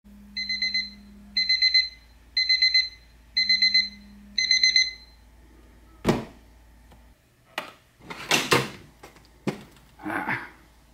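Phone alarm going off in five bursts of rapid high beeps, about one burst a second, then it stops. A sharp knock follows, then a few clicks and rustles of handling.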